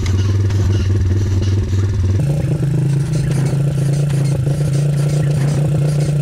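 Pit bike engine running at a steady pitch; about two seconds in, the pitch jumps abruptly higher and holds steady.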